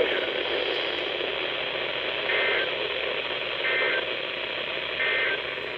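Three short bursts of Emergency Alert System data tones, each about a third of a second long and about a second and a half apart, over steady radio static. Their shortness and spacing fit the SAME end-of-message code, which closes an alert.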